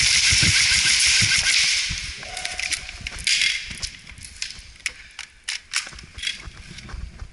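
Airsoft guns firing: a dense, fast rattle for about the first two seconds and a short burst again a little after three seconds, then scattered single sharp clicks and pops.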